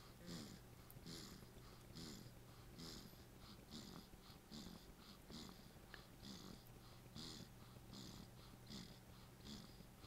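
Sleeping newborn baby snoring faintly, a little snore with each quick breath, a little more than one breath a second in an even rhythm.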